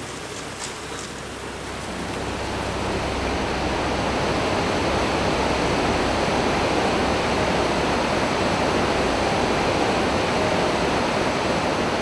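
Rushing, churning water of a flooded river, swelling over the first few seconds into a loud, steady rush.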